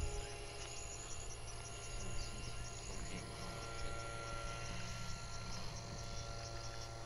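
Field insects chirping in a quick, regular high pulse, several chirps a second, over a steady low hum.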